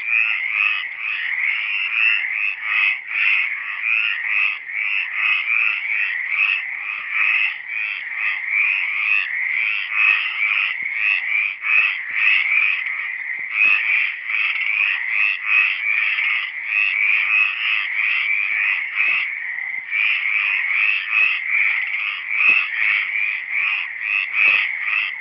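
A dense chorus of frogs, many calling at once, their short fairly high-pitched croaks repeating several times a second.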